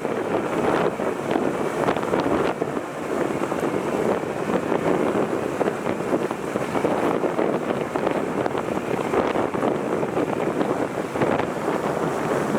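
Steady wind buffeting the microphone, a rushing noise that swells and dips without any clear tone.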